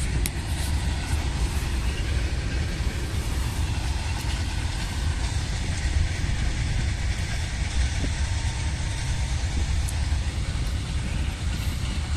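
Freight train of open wagons passing at a distance, a steady, continuous rumble of wagons running along the track.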